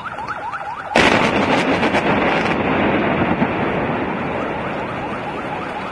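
Explosive demolition charges fire about a second in: a sudden loud blast with a rapid string of sharp cracks for about a second and a half. It gives way to the long, slowly fading rumble of a concrete high-rise tower collapsing.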